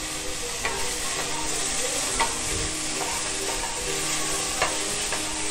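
Onions, chillies and freshly added chopped tomatoes sizzling in hot ghee in a kadai while a wooden spatula stirs them. The steady frying hiss is broken by short scrapes and taps of the spatula against the pan, about once a second.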